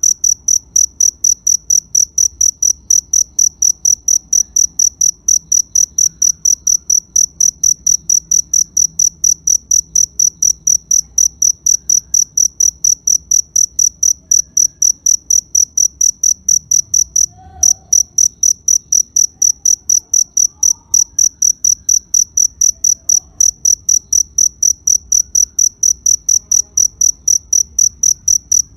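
A cricket chirping steadily in short, evenly spaced high-pitched pulses, about three a second, with one brief break about two-thirds of the way through.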